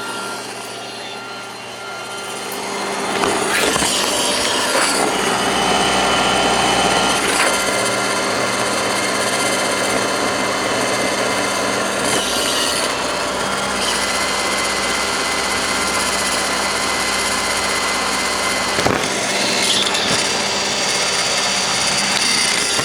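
Roomba robot vacuum running, heard from on top of it: a steady motor and brush whine with a rushing suction noise that grows louder about three seconds in and then holds. A single sharp knock sounds near the end.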